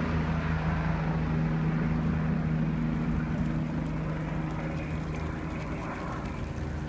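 Helicopter flying away after lifting off, its steady rotor and engine drone slowly growing fainter as it recedes.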